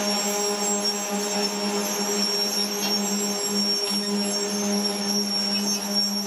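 Track-construction train machinery running steadily: an unchanging low hum with overtones and a thin high whine, with a couple of faint clicks around three and four seconds in.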